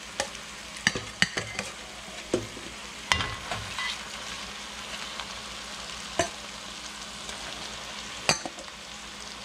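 Browned chicken thighs sizzling as they are set into a hot pot of cooked-down onions, bell pepper, celery and garlic: a steady frying hiss. Sharp clinks against the metal pot come several times in the first few seconds, then once around six seconds and once around eight.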